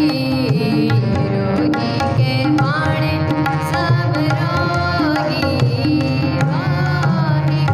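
Sikh shabad kirtan: female voices singing a devotional hymn with gliding melodic lines, over the held reedy tones of two harmoniums and a steady tabla rhythm.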